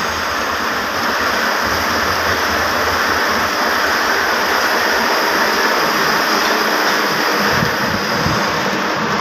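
Textile machinery running: a sectional warping machine's drum turns as it winds yarn, in a loud, steady mechanical din with no distinct beat.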